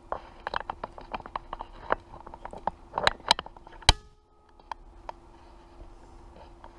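Handling noise of a camera and small parts on a workbench: a run of irregular small clicks and taps, ending in a sharp knock about four seconds in as the camera is set down. Then a faint steady hum with a few scattered ticks.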